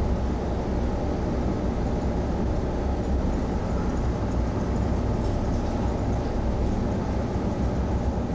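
Steady low rumbling background noise with no breaks or distinct events.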